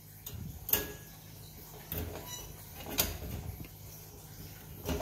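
A few sharp metallic clinks and knocks from a small hand-cranked, non-electric wire-mesh drum coffee roaster being handled on its stand over a gas stove, the loudest about three seconds in.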